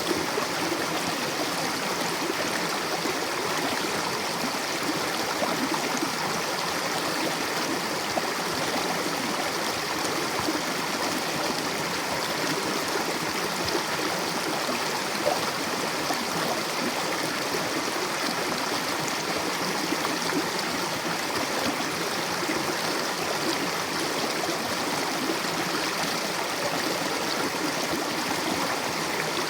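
Mountain river rushing over rocks: a steady, full rush of water with gurgling, no change in level.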